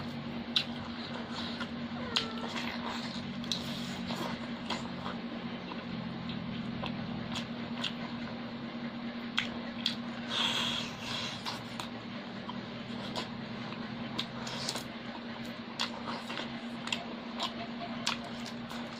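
Close-up eating sounds: wet chewing, lip smacks and sucking clicks as chicken and rice are eaten by hand, with a louder tearing bite about halfway through. A steady low hum runs underneath.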